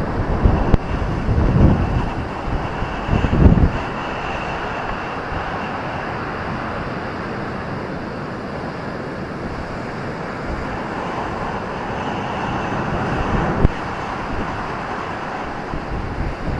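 Ocean surf breaking on a beach, with gusts of wind buffeting the microphone during the first few seconds, then a steady roar of wash.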